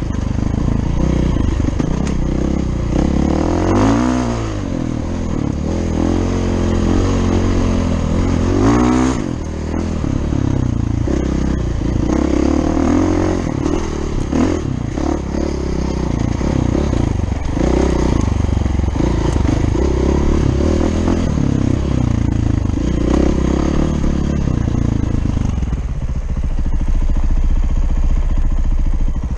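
Dirt bike engine under way on a rough trail, its revs rising and falling with the throttle, with quick climbs in pitch about four and nine seconds in, over rattling from the bike.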